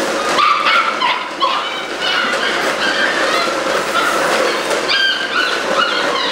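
Several Belgian Malinois puppies yipping and barking in quick, short, high-pitched calls, several a second.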